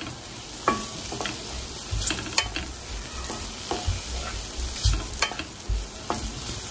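Mixed vegetables and scrambled egg sizzling in a steel wok while a wooden spatula stirs them, with irregular scrapes and knocks of the spatula against the pan.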